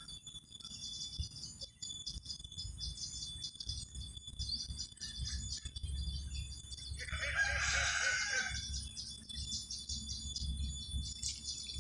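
A rooster crows once, about seven seconds in, over a steady high chirring of insects.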